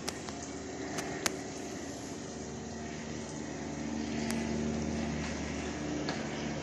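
A motor running steadily, with a few sharp clicks.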